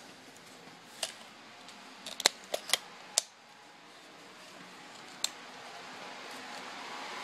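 Scattered sharp clicks and taps, most of them bunched between about two and three seconds in, over a faint hiss that slowly grows louder.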